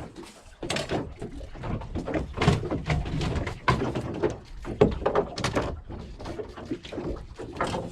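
Irregular knocking and clattering over a low rumble.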